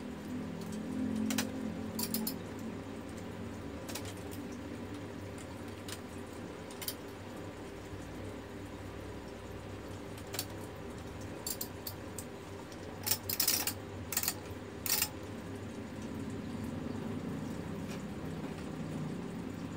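Scattered clicks and light rattles of plastic and metal parts being handled as the ribbon and correction tape are fitted to a Brother GX-6750 electronic typewriter, with a quick run of louder clicks about two-thirds of the way through, over a steady low hum.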